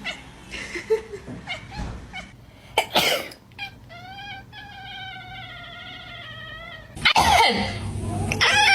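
A person coughs and a domestic cat answers with one long, drawn-out meow lasting about three seconds. Near the end another cough comes and the cat starts a second, wavering meow.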